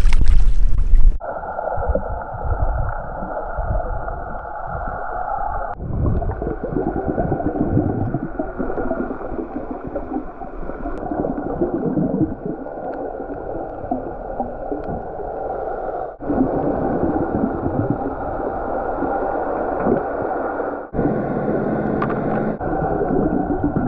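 Brief loud splashing at the surface, then muffled underwater water noise and gurgling heard through an underwater camera, dull and lacking any high sounds, broken by a few abrupt cuts.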